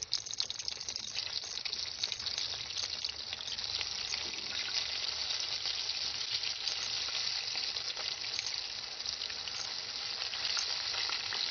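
Coated fish pieces deep-frying in hot oil in an aluminium pot: a steady sizzle with fine crackling.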